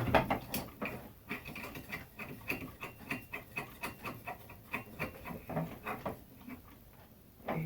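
Irregular small metallic clicks and scraping as screws are threaded into a ceiling electrical box to hold a fan's mounting bracket.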